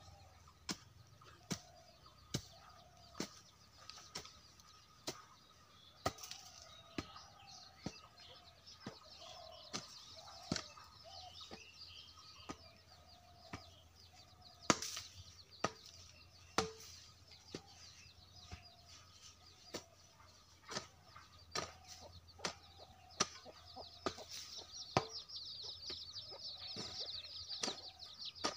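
Hoe blade striking into dry soil, one chop roughly every second, while chickens cluck in the background. Small birds chirp thickly near the end.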